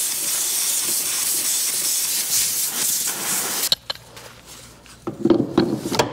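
Compressed air hissing loudly from an air hose, blowing grass and dust out of a mower deck's spindle housing, then cutting off suddenly a little past halfway. Near the end come a few knocks and a short metallic clatter as a pipe wrench is set on the spindle pulley.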